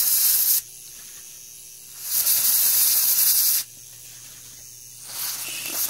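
Aerosol contact cleaner sprayed through an extension straw onto the contacts of a transceiver's antenna relay in three hissing bursts: a short one ending about half a second in, a longer one of about a second and a half, and a third near the end. The non-flammable cleaner is being used to clean the worn, dirty contacts of the ageing relay.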